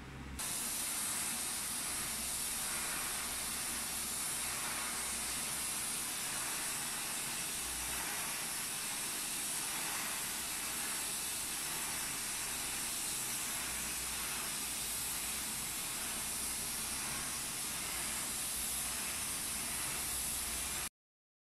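TIG welding arc burning steadily as a weld overlay is laid with filler wire: an even hiss that stops suddenly near the end.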